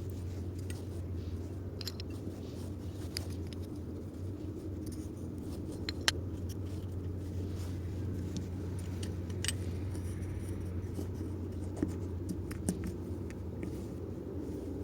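Light clicks and taps of small metal engine parts being handled during assembly, with one sharper click about six seconds in, over a steady low hum.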